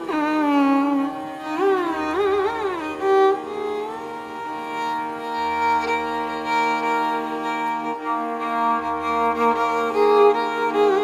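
Background music in an Indian style: a sliding, ornamented melody on a bowed string instrument over a steady drone, with a low bass note pulsing about every three and a half seconds.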